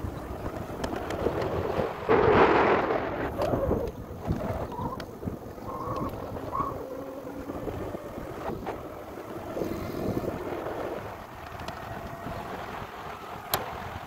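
Wind rushing over the microphone during an e-bike ride on a street, with road noise underneath. The wind is loudest about two seconds in, and there is a single sharp click near the end.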